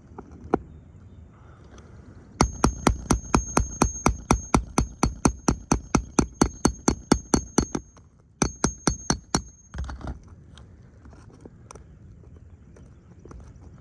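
A hammer striking rapidly and evenly, about five blows a second for several seconds, then a short second run of about six blows, with a thin high ring carrying through the strikes.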